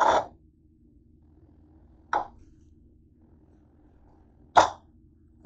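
Plastic cling wrap being peeled off a bowl: four short, sudden crinkles. The first three are about two seconds apart and the last follows about a second after the third.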